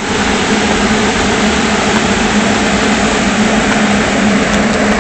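Electric blower fan inflating an air-dancer tube man, running steadily: a loud, even rush of air over a low steady hum.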